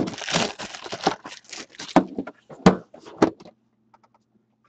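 A metal hockey card tin being unwrapped and its lid worked off by hand: a quick run of crinkles, scrapes and sharp clicks, stopping after about three and a half seconds.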